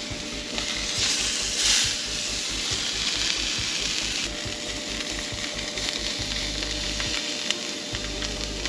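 Seasoned tuna loin sizzling as it sears in a hot ridged grill pan. The sizzle is steady and flares louder briefly about a second and a half in.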